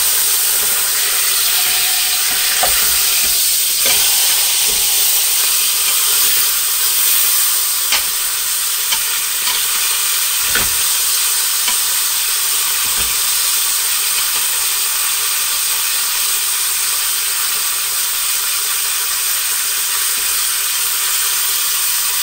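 Beef chuck roast searing in hot oil in a large stainless steel pot, a loud steady sizzle that shows the oil is hot enough. Metal tongs knock against the pot a few times in the first half as the roast is turned over.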